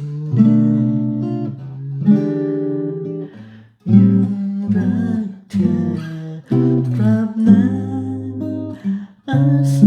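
Solo acoustic guitar playing an instrumental passage of a reharmonized song: plucked chords that ring out and fade, with a brief pause about three and a half seconds in and another near the end.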